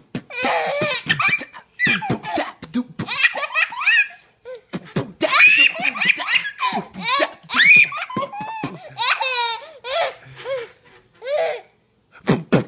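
A baby boy laughing hard in high-pitched bursts, one after another, with short pauses for breath between them.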